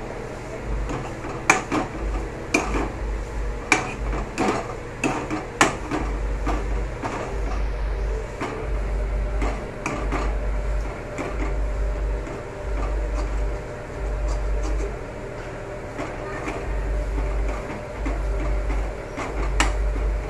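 Metal spoon stirring grated pumpkin in a steel kadhai, clinking sharply against the pan, often in the first few seconds and now and then later, while the pumpkin roasts dry in ghee. A low rumble pulses about once a second through the latter part.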